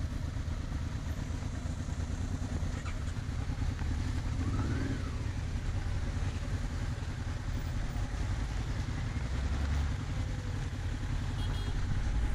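Motorcycle engine running steadily at low speed, heard from on the bike, a continuous low-pitched engine sound.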